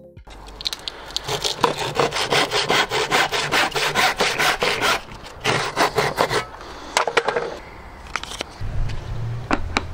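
Handsaw cutting through a timber batten in quick, even strokes, stopping about two-thirds of the way in. A few knocks follow as the cut-off piece comes free.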